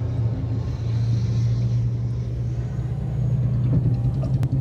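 Steady low vehicle rumble with an even engine hum, heard from inside a car's cabin. A sharp click comes near the end.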